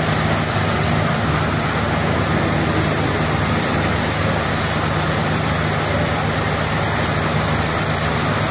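Heavy rain pouring onto a paved street, a dense, steady hiss of drops splashing on the wet road.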